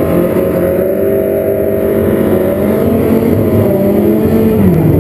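Datsun 521 drag car's engine, fitted with a new header and carburettors, held at high revs, its pitch sliding down near the end as it comes off the throttle.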